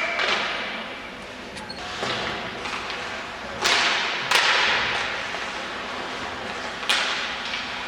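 Ice hockey play: sharp cracks of sticks and puck striking, three times (about three and a half, four and a half and seven seconds in), each ringing on in the arena's echo, over a steady hiss.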